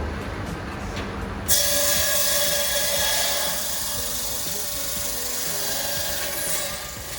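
Electric ice-cutting machine starting abruptly about a second and a half in, then running steadily with a high, whining hiss.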